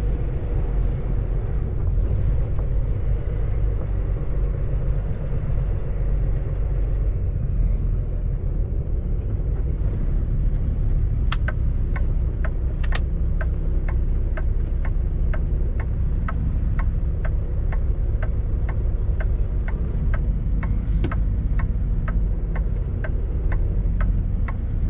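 Semi truck's diesel engine running steadily, heard from inside the cab while manoeuvring to back into a parking spot. From about ten seconds in, a regular clicking about twice a second joins it.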